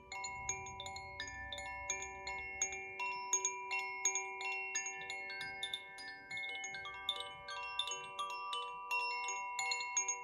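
Two hand-held Koshi chimes, bamboo tubes with tuned metal rods inside, moved gently so their clappers strike again and again: clear bell-like notes at several pitches, a few strikes a second, each note ringing on and overlapping the next.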